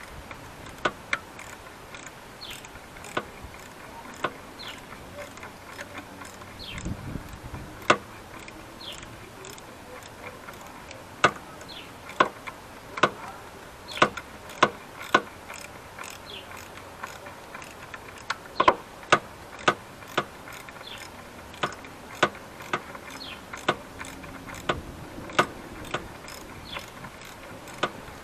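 Sharp, irregular clicks and light knocks of hand tools and parts being handled in a car's engine bay, single or in quick pairs, about one a second, thickest in the middle of the stretch.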